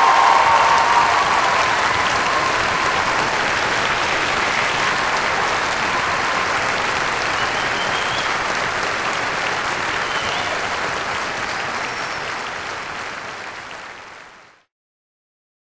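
Concert hall audience applauding steadily, fading out shortly before the end.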